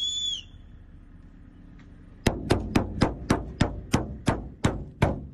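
A short high whistle-like note at the start. Then, a little over two seconds in, about eleven sharp, evenly spaced knocks come at roughly three a second.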